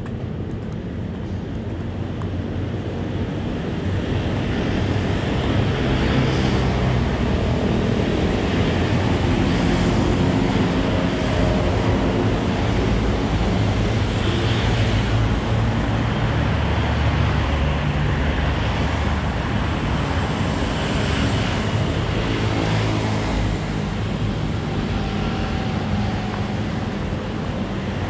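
Steady road traffic noise with wind noise on the microphone.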